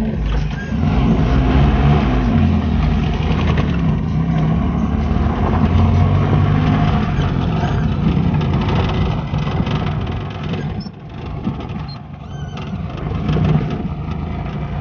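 A car running while it drives: a steady engine and road rumble, briefly dropping about eleven seconds in.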